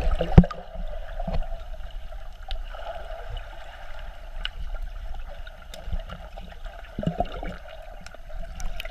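Muffled underwater sound of swimming-pool water picked up by a GoPro in its waterproof housing, with steady gurgling and sloshing. A sharp knock comes just under half a second in, and a few faint clicks follow.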